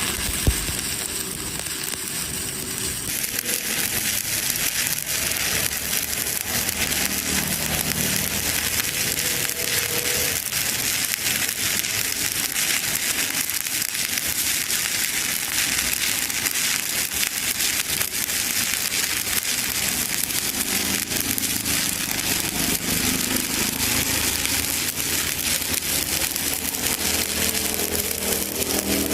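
Stick (SMAW) welding arc crackling steadily as an electrode burns along a plate weld, over a low hum, with one sharp knock about half a second in.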